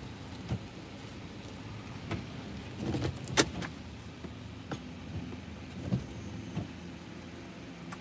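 Car cabin sound of an engine running with a steady low hum, with a few scattered clicks and taps over it; the sharpest click comes about three and a half seconds in.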